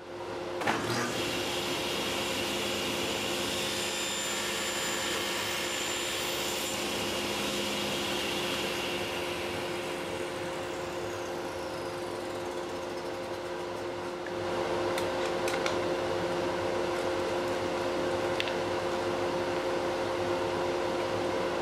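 Steady running of a workshop machine: a vacuum-like rush with a steady hum, starting suddenly and growing a little louder about two thirds of the way through. A few light clicks come over it near the end.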